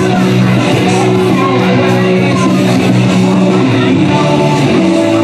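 Loud rock entrance music with guitar, playing steadily.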